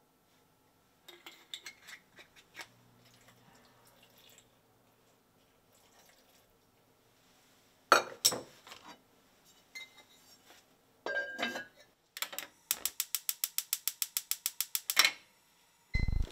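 Cookware being handled on a gas stove, with a sharp knock about halfway. Then a gas burner's igniter ticks rapidly, about nine clicks a second for some two seconds, and a digital kitchen timer gives a short beep as it is started near the end.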